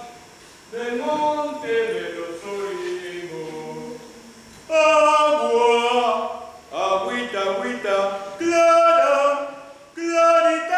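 Unaccompanied voices singing a slow melodic song with held notes. It is softer for the first few seconds and comes in much louder about five seconds in.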